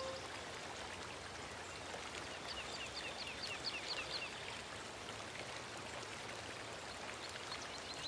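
Steady rushing sound of running water from the background music's nature-sound layer, heard in a gap between musical phrases, with a quick run of short, high chirps between about two and four seconds in.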